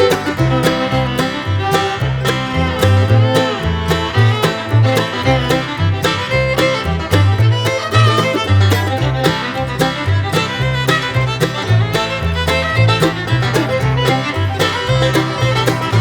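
Background music: upbeat bluegrass with fiddle, banjo and guitar over a steady bass line.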